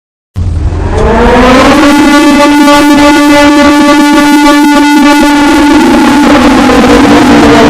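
Loud, sustained emergency alarm tone that starts abruptly about half a second in, rises slightly in pitch over the first two seconds, then holds steady.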